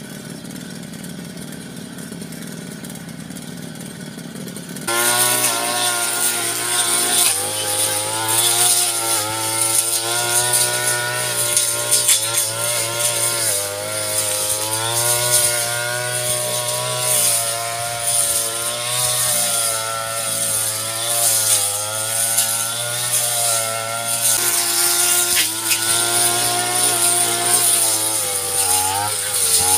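Brush cutter engine running, first at a low idle, then throttled up sharply about five seconds in to a loud, high cutting speed, its pitch rising and dipping as the line cuts through grass and weeds.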